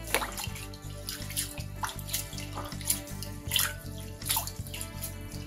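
A hand swishing and rubbing rice grains in a glass bowl of water, with uneven splashes about two or three times a second, as the starch is washed out of the rice.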